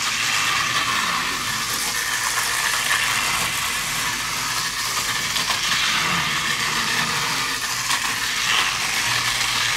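Battery-powered toy bullet trains running on plastic track through a vertical loop: a steady whirring and rattling of small motors and plastic wheels.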